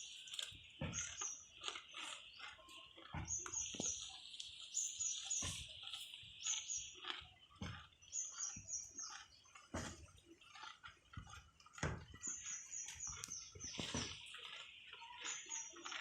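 Water buffalo grazing: crunchy tearing and chewing of grass every second or two. Birds chirp in short runs of quick high notes over a steady high-pitched hiss.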